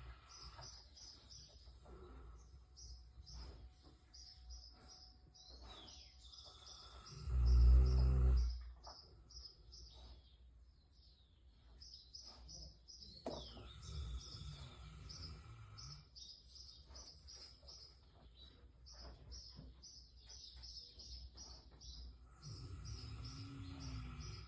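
Snoring: one loud snore about seven seconds in and a softer one near the end, over steady high-pitched chirping at about two to three chirps a second.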